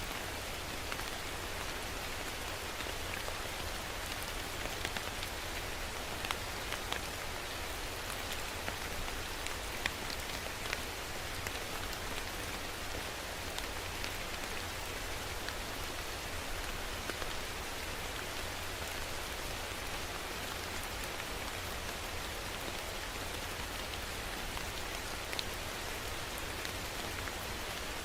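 Steady rain falling: an even hiss with scattered individual drops ticking sharply now and then.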